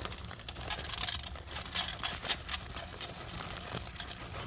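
Bag of birdseed rustling and crinkling as it is handled, with irregular crackles throughout.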